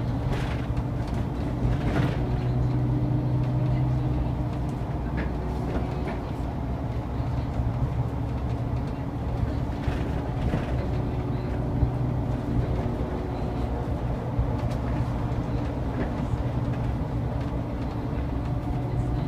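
Inside a moving bus: a steady low engine hum and road noise while driving, with scattered light clicks and rattles.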